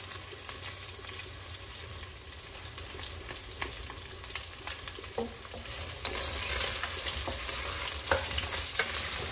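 Chicken pieces frying in butter and olive oil in a pot, a steady sizzle, with a utensil stirring and knocking against the pot now and then. The sizzle grows louder about six seconds in.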